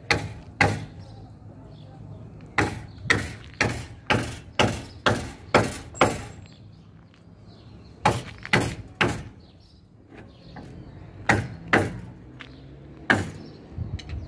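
Hammer blows on the timber of a wooden roof frame: sharp strikes about two a second, a run of eight, then shorter groups of two or three with pauses between.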